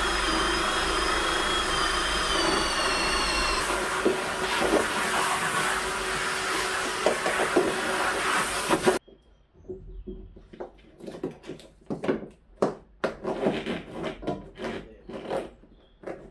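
Power tool running steadily, a loud rushing noise with a motor whine that slowly drops in pitch over the first few seconds. About nine seconds in it cuts off abruptly, followed by scattered short knocks and rustles of handling.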